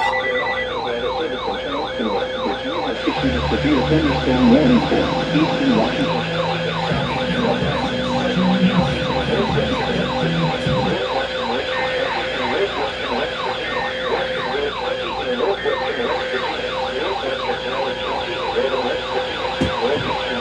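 A siren tone warbling rapidly up and down several times a second, over a steady lower hum; lower tones come and go partway through.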